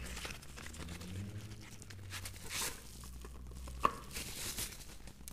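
Crinkling and rustling of bubble wrap and a cardboard box as a wrapped flashlight is slid out, with one sharp click a little before four seconds in.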